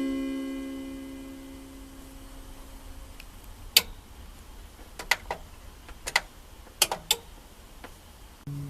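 Last, lowest note of a Panasonic WA-930 PA amplifier's built-in descending chime ringing out and fading over the first few seconds. It is followed by a handful of sharp clicks, and a low hum starts near the end.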